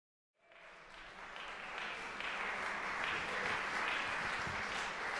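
Audience applauding, fading in about half a second in and swelling to a steady level.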